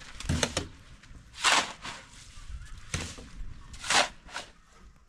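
Steel shovel scraping up wet mortar and tipping it into a wheelbarrow, four scoops about a second apart.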